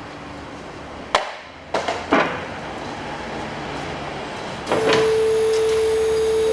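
Several sharp knocks of tools or bike parts being handled. About three-quarters of the way through, a steady high-pitched hum starts and holds.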